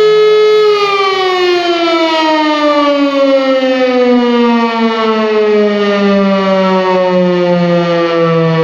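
Civil-defence siren sounding a steady tone, then, about a second in, beginning a long, slow falling glide as it winds down.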